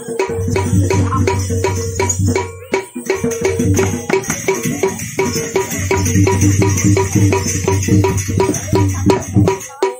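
Balinese gamelan playing: dense, fast metallic strokes over a low steady hum, with a high shimmer. The ensemble thins to separate strokes near the end.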